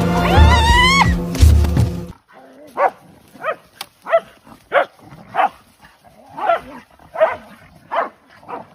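A music track with a deep beat for about two seconds, which cuts off; then a dog barking repeatedly, about nine short barks a little under a second apart.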